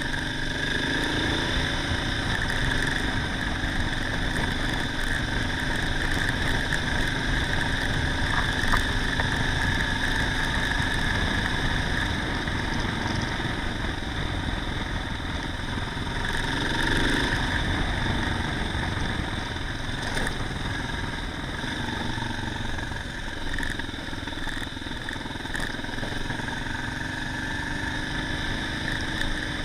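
Dual-sport motorcycle engine running steadily while riding along a dirt track, with rushing wind noise on the bike-mounted camera.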